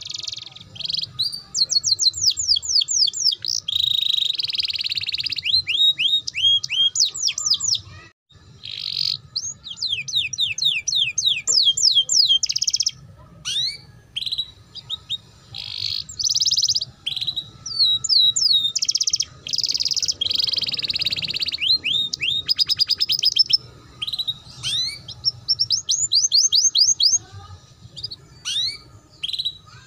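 Domestic canary singing a long, rapid song of fast trills, quick series of falling notes and buzzy rattling phrases, with short pauses between phrases.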